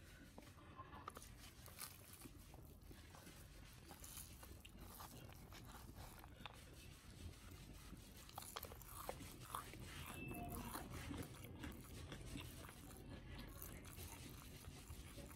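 Faint sounds of someone eating rice by hand: chewing, with scattered soft clicks and ticks as fingers pick food from a plastic plate.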